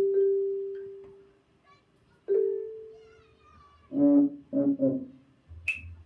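Classroom instruments played as a nature piece: two mallet strikes on a pitched bar instrument, each ringing out for about a second, with faint high chirps after the second. About four seconds in come three short buzzy low notes, and a sharp click near the end.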